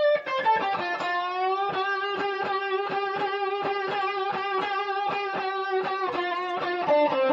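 Electric guitar playing a blues lick in D: a quick run down the minor pentatonic, then the minor third bent up to the fourth and held with a violent vibrato while it is picked about four times a second, dropping to lower notes near the end.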